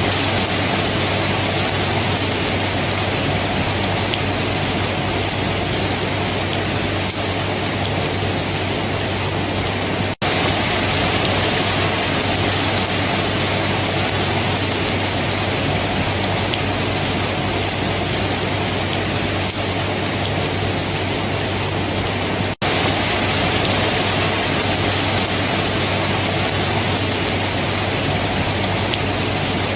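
Steady, heavy rain falling, an even hiss with no thunder. Two momentary dropouts, about 10 and 22 seconds in, where the sound cuts out for an instant and resumes.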